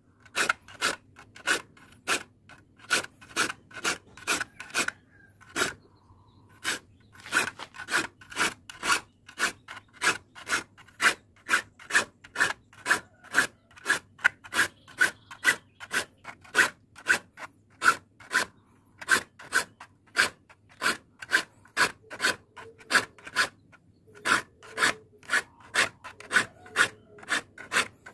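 Hand file stroking across the teeth of a crosscut hand saw to sharpen them, in a steady rasping rhythm of about two and a half strokes a second, with a short pause about six seconds in.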